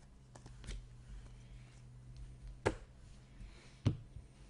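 Trading cards being handled and flipped through, with two sharp taps a little past halfway and near the end as stacks of cards are set down on the table. A low steady hum underneath.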